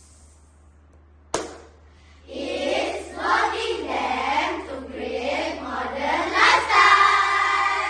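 Group of children voicing together in a choral speaking piece: a single sharp clap or knock about a second in, then the group chants in unison and ends on a held, sung note.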